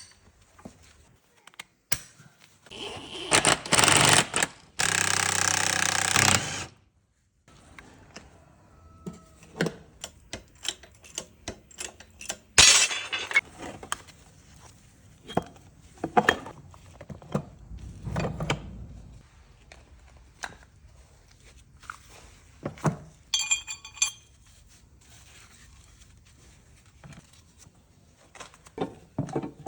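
Steel gears and parts of a 5-speed manual transmission clinking and knocking as they are handled and fitted together during reassembly, with scattered sharp metal taps and a short ringing note. About three seconds in, a loud rushing noise lasts about four seconds.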